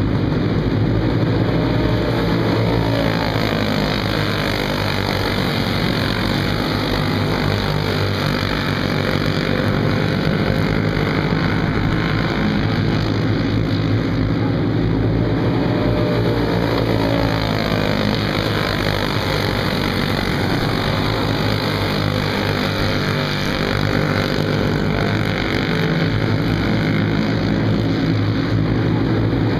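Several racing go-kart engines, Briggs & Stratton Animal single-cylinder four-strokes, running together, their pitch rising and falling as the karts accelerate and lift off around the track.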